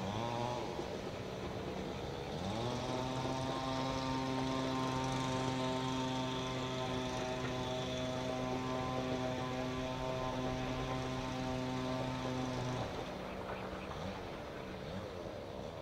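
An engine on the permanent-way crew's track machinery, worked while they replace a sleeper. It revs up about two and a half seconds in, holds a steady drone for about ten seconds, then cuts back near the end.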